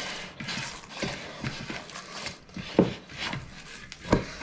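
Hand kneading and squeezing minced pork mixed with sage and wetted breadcrumbs in a plastic bowl: irregular squelching and pressing, with two louder thumps, one in the middle and one near the end, as the meat mass is pushed against the bowl.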